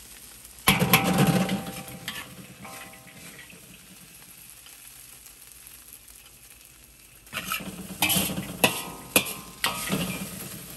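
A metal spatula scrapes across a wok as stir-fried food is scooped out onto a plate. There is a loud scrape about a second in, then a run of scrapes and sharp knocks of the spatula against the wok near the end.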